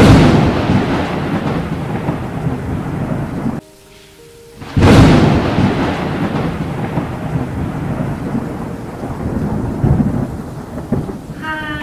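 Thunderstorm sound effect: a sudden thunderclap rolling off into a long rumble with rain, then a second clap about five seconds in that again fades in a long rumble.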